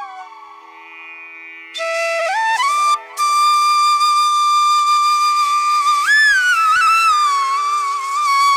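Background music: a solo flute melody over a steady drone. The flute enters about two seconds in and plays long held notes with slides between them.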